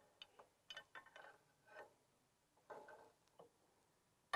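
Faint, scattered clicks and light taps of hands fitting small parts at a motorcycle's shock linkage, with one sharper click near the end.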